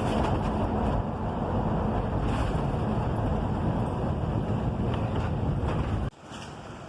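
Steady road and engine rumble heard inside a moving car's cabin, which stops suddenly near the end.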